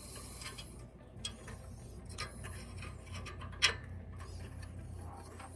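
Light clicks and rubbing of metal parts being handled, as a cylinder head gasket and studs are fitted by feel, with one sharper click about three and a half seconds in. A low steady hum runs underneath.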